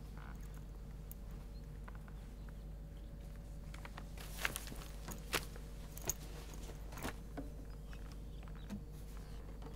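Quiet room tone with a steady low hum, broken in the middle by a handful of soft, sharp taps spaced under a second apart.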